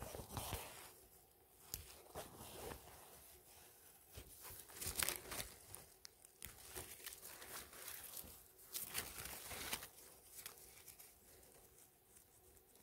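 Dry fallen leaves and moss rustling and crackling as a gloved hand clears the forest litter around a cluster of yellowfoot chanterelles and picks them: faint, irregular crinkling and tearing noises, busiest at the start, about five seconds in and about nine seconds in.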